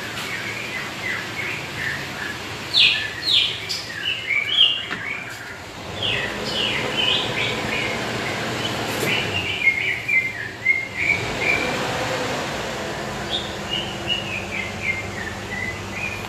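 Small birds chirping and twittering again and again, over a low steady hum of the Toyota Land Cruiser's engine idling as it warms up; the hum grows a little stronger about six seconds in.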